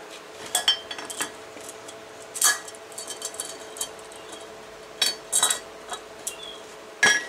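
Steel differential parts, a Suzuki Samurai pinion gear and its cast third-member housing, clinking and knocking as they are handled and set on a workbench: a string of short, sharp metallic clinks at irregular intervals, with the loudest near the end.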